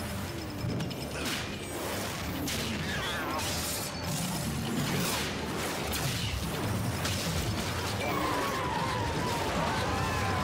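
Cartoon sci-fi battle sound effects: a rocket-powered flying bike's jet, a blaster shot striking it and crashing impacts, in a dense steady mix. Sliding whistling tones come near the end.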